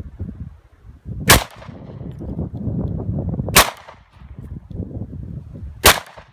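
Three handgun shots, evenly spaced about two and a half seconds apart, fired outdoors at steel targets. A low rumble of wind on the microphone fills the gaps between the shots.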